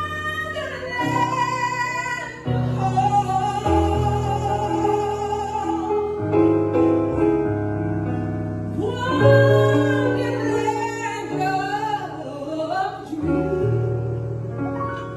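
Female vocalist singing a song live over sustained instrumental accompaniment, with long held notes that waver in vibrato.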